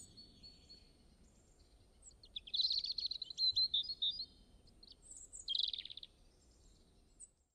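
Birdsong: a row of short high chirps, then a louder rapid twittering trill from about two and a half seconds in and another near six seconds.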